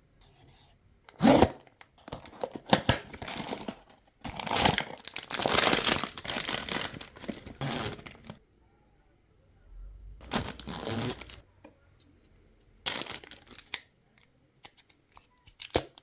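Blind-box packaging torn open and crinkled by hand, in several bursts of tearing and rustling, the longest about four seconds in, with a few light clicks near the end.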